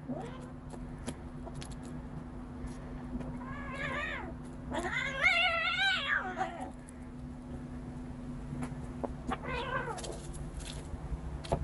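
Cats play-fighting, with a cat yowling three times. A short wavering yowl comes about four seconds in, a longer and louder wavering yowl follows just after, and a shorter one comes near ten seconds.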